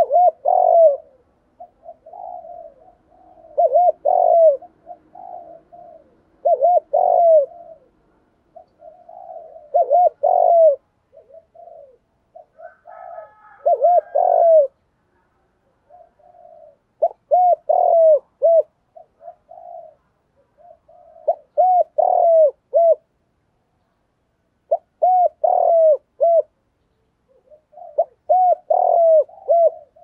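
Spotted dove cooing, repeating a short phrase of a few rounded, arching coos about every three to four seconds, with a faint higher bird call partway through.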